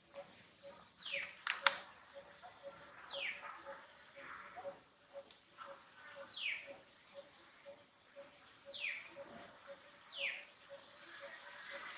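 A bird calling over and over, each call a short falling whistle, roughly every one to two seconds, over a faint steady ticking pulse about twice a second. A sharp click about one and a half seconds in is the loudest sound.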